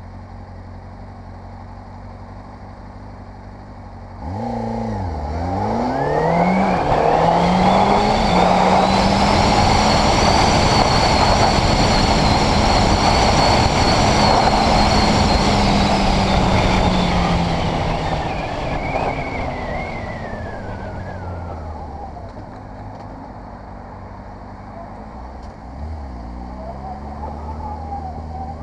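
Honda CBR600RR inline-four motorcycle engine idling, then accelerating hard away about four seconds in with two quick upshifts, the revs rising and dropping each time. It then holds a steady speed with wind rushing loudly over the camera, before the engine note falls away as the bike slows, with a short rev near the end.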